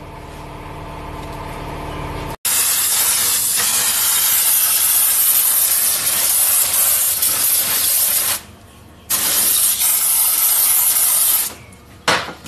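Aerosol brake cleaner spraying in long hissing bursts into a crankshaft's oil passages to flush out anything stuck in them. It starts about two and a half seconds in after a quieter stretch with a low hum, breaks off briefly about eight seconds in, and ends with a short spurt near the end.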